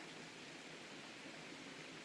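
Faint, steady outdoor ambient hiss with no distinct events.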